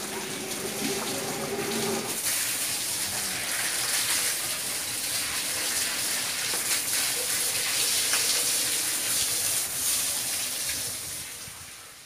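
Water from a garden hose spraying over a dairy cow and splashing onto the wet concrete floor, a steady rushing hiss that fades away near the end.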